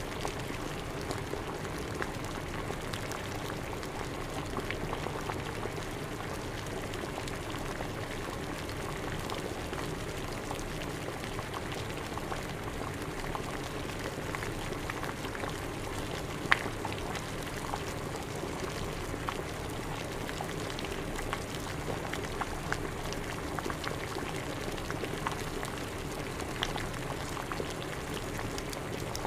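Water at a rolling boil, bubbling steadily with many small pops and a sharper pop about sixteen seconds in.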